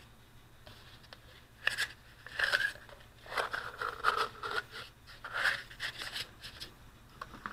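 Thin 6-mil polyethylene sheeting rustling in short, scattered bursts as fingers press a disc of it down onto putty in a plastic container.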